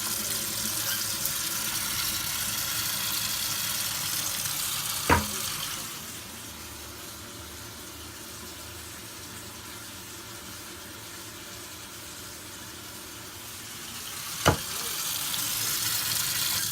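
Water running steadily from a tap, with a sharp click about five seconds in and again near the end. The flow is quieter between the two clicks.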